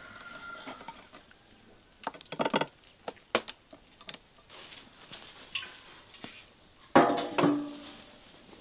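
Sharp taps and clatters of a hooded crow's beak and feet on a wooden table and a steel kitchen knife: a few knocks around two to three and a half seconds in, and a loud clatter with a short ring about seven seconds in.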